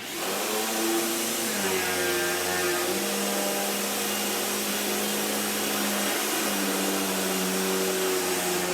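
Vacuum cleaner switched on suddenly, its motor then running steadily with a constant hum and a rush of air.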